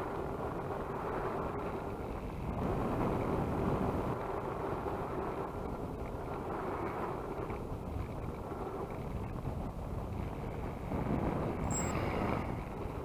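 Twin electric motors of a model seaplane running with a faint steady hum, under wind and rushing noise on the microphone.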